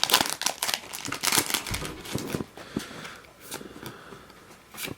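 Foil wrapper of a Pokémon trading card booster pack crinkling and tearing as it is opened by hand. The crinkling is densest in the first half, then gives way to quieter rustling and a few light ticks.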